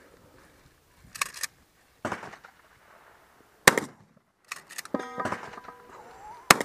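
Two 12-gauge shotgun shots about three seconds apart, the first the loudest, with fainter clicks and knocks between them.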